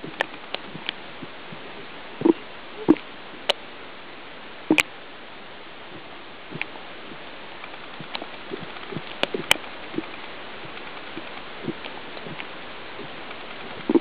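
Underwater sound picked up by a waterproof compact camera held below the surface: a steady hiss with sharp clicks and short low knocks at irregular intervals, the loudest about two, three, five and nine and a half seconds in.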